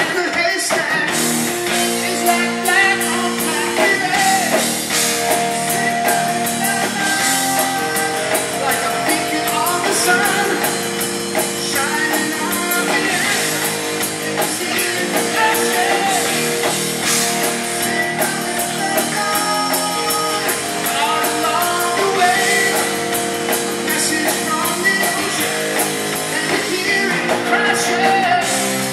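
Live rock band playing: guitar and drum kit under a male lead vocal, sung into the microphone.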